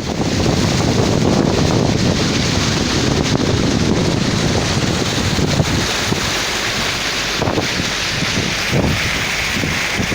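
Torrential rain pouring down in a steady hiss, with wind buffeting the microphone.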